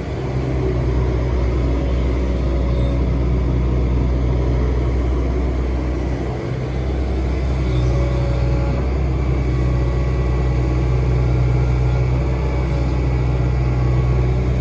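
Hitachi Zaxis excavator's diesel engine running steadily and loudly as the machine works, with a brief dip about halfway through.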